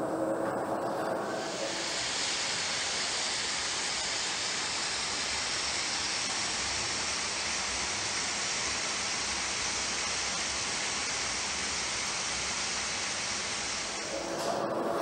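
High-pressure atomizing paint spray guns hissing steadily as they spray paint. The hiss starts abruptly about a second and a half in and stays even until near the end.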